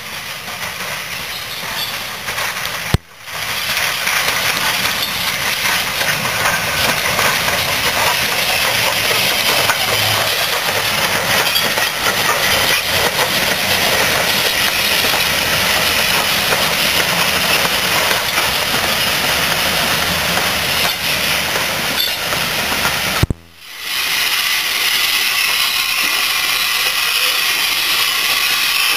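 SR U Class 2-6-0 steam locomotive No. 1638 on the move with a loud, steady hiss of escaping steam. The sound breaks off briefly twice.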